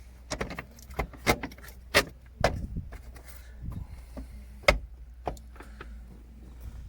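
A run of irregular clicks and knocks from gear-shifter parts and tools being handled during the fitting, the sharpest a little past halfway, over a low steady hum.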